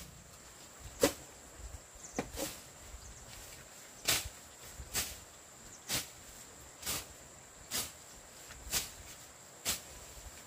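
Grass being cut by hand, a short swishing stroke about once a second in an even rhythm.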